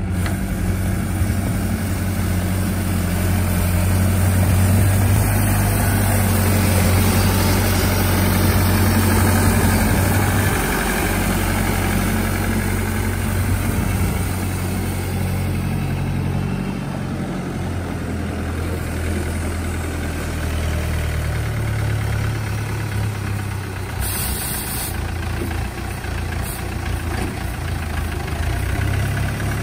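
New Holland TL90 tractor's diesel engine running as the tractor drives about: a steady low drone, loudest over the first ten seconds, that drops a little and shifts in pitch as the tractor moves on.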